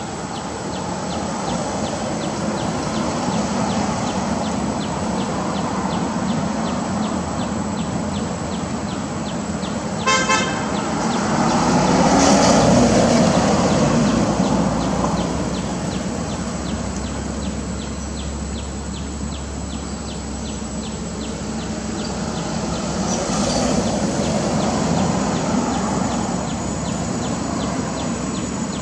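Road traffic: a vehicle horn gives one short toot about ten seconds in, then a vehicle passes, swelling and fading with a low rumble, over a steady background of traffic noise.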